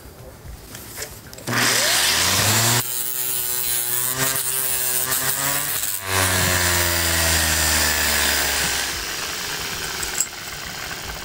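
Orbital sander with an 80-grit pad starting about a second and a half in, its motor whine rising as it spins up, then running and grinding the rust off a pair of steel adjustable pliers. The sound drops away near the end.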